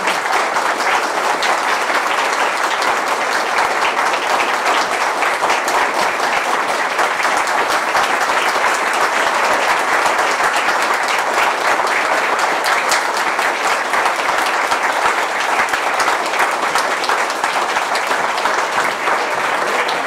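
Theatre audience applauding steadily, a dense clatter of many hands clapping.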